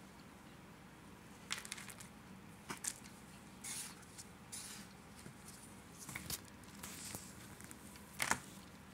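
Plastic spoon scooping and crushing a heap of powdered starch: a string of short, dry crunches and scrapes at irregular intervals, the loudest near the end.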